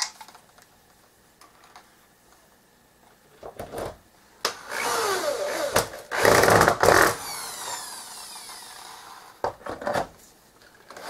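Power drill boring into plywood through a metal hub's centre. Its motor runs for about two and a half seconds, pitch rising and falling as the trigger is worked, then winds down with a falling whine. A few clicks follow near the end.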